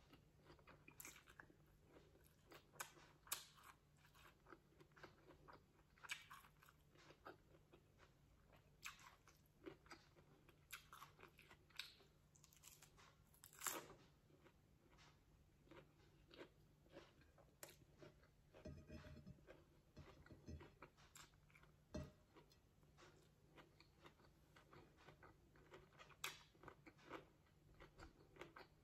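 A person biting and chewing a crisp lettuce-wrap taco filled with meat, giving faint, irregular crunches and mouth clicks.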